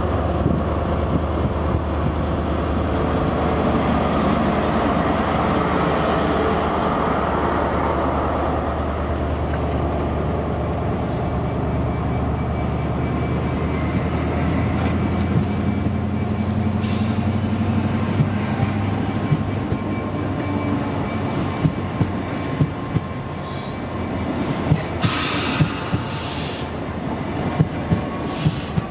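High Speed Train passing close by: the Class 43 power car's diesel engine drones steadily at first. Then the Mark 3 coaches roll past with sharp wheel clicks over the rail joints, coming more often in the second half.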